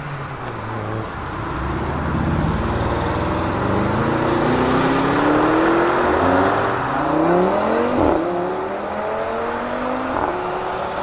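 Sports car engine accelerating hard, its revs climbing in several rising sweeps as it goes up through the gears. A single sharp crack is heard about three-quarters of the way through.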